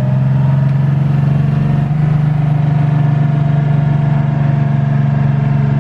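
River ferry's engine running loud and steady with the boat under way, its pitch climbing a little in the first second as the boat picks up speed, then holding.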